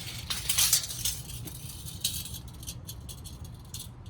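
Metal tape measure rattling and clicking as its blade is pulled out to measure ride height, loudest about half a second in, with scattered ticks later.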